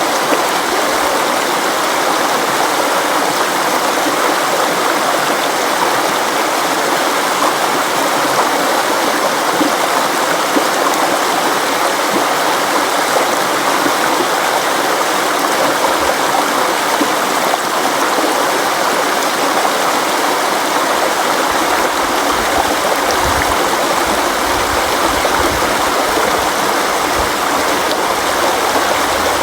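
A river flowing: a steady, unbroken rush of water. A low rumble comes and goes under it in the last few seconds.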